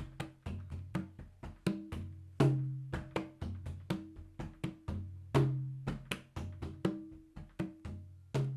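Percussion music: a steady pattern of short drum and wood-block strikes, about three a second, each ringing briefly at a low pitch, with a heavier low drum stroke about every three seconds.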